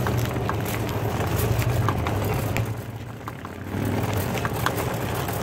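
Motorcycle engines running, a steady low rumble that drops away briefly about three seconds in, with a few light clicks.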